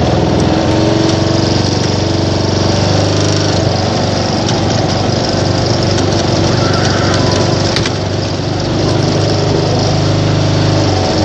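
Riding lawn mower's small engine running steadily.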